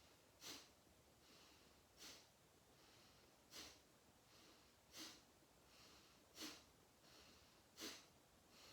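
Faint, sharp, forceful exhalations through the nose, six of them about one every second and a half, with softer in-breaths between: Kapalabhati (breath of fire) pumping breaths.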